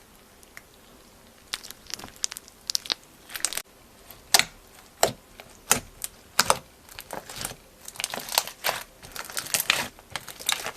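Crunchy slime being pressed and squeezed by hand: irregular crackling clicks that start about a second and a half in and come in quick clusters.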